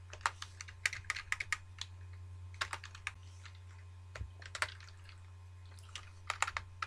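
Typing on a computer keyboard: key clicks in short bursts with brief pauses, over a steady low hum.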